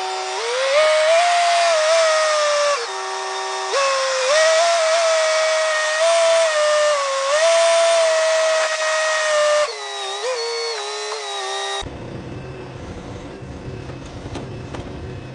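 Loud high-pitched mechanical whine that steps up and down between a few pitches, stopping abruptly about twelve seconds in; after that a lower, steadier engine-like rumble.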